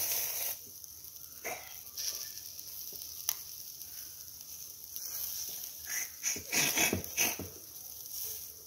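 Chicken tikka skewers sizzling on a grill with a steady hiss, with a sharp click about three seconds in and a few louder bursts of noise near the end as the skewers are handled.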